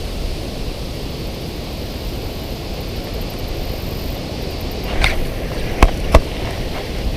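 Wind buffeting the microphone, a steady low rumble. About five seconds in comes a brief swish, then two sharp clicks close together.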